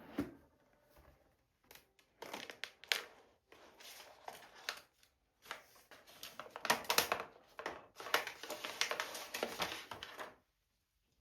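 Packaging crinkling and rustling in irregular bursts as it is handled and opened. It stops near the end.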